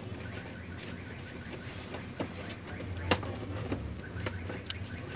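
Handling noise inside an opened Brother ink-tank printer: a few sharp plastic clicks and taps as hands work wire connectors and the cable harness loose, the loudest about three seconds in, over a steady low hum.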